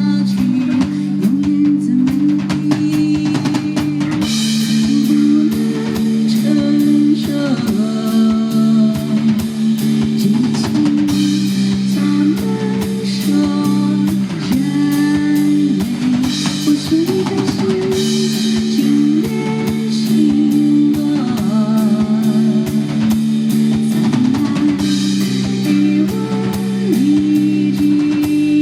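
Live pop band playing the song with a steady drum-kit beat, guitar, and held low chords underneath, with a voice singing a melody over it.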